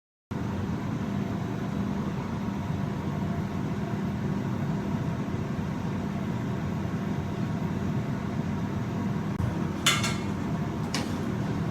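Steady low rumbling noise, with a sharp ringing clink about ten seconds in and a fainter clink a second later, like a utensil striking a pot or glass.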